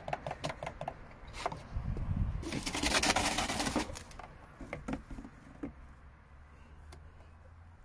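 Handling noise from an oil pump's plastic hose and a cardboard box: scattered clicks and taps, with a louder rustling scrape about two to four seconds in, then a few small knocks.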